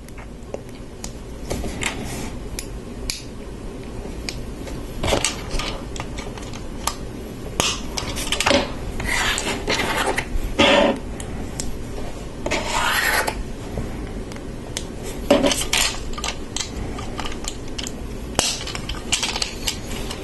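LEGO pieces handled and fitted together by hand: irregular clicks, taps and short scrapes of small plastic parts and thin metal train axles on a tabletop.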